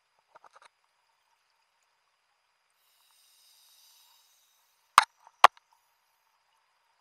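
Sound through a scuba diver's wrist-mounted underwater camera housing: mostly quiet, with a few faint clicks near the start and a soft hiss about three seconds in. Then two sharp knocks about half a second apart, around five seconds in, as the housing or the diver's gear bumps against something.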